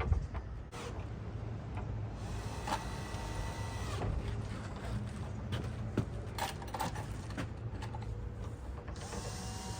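Cordless drill driving screws: the motor spins up, runs briefly and winds down, twice, with scattered clicks and knocks between the runs. A single loud thump at the very start.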